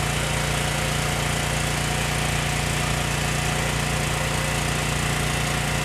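Small engine running steadily at a constant speed, an even hum with no change in pitch.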